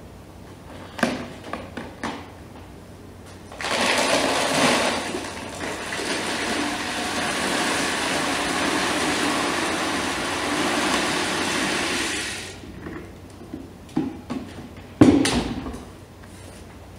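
About 7 kg of frankincense (Boswellia sacra) gum-oleoresin poured from a bag into the still's pot of near-boiling water: a steady rush of pouring that lasts about nine seconds. A few handling clicks come before it, and a single sharp knock about fifteen seconds in.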